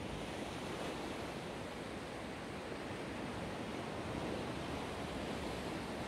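Black Sea waves washing ashore in a steady surf noise, with no single break standing out.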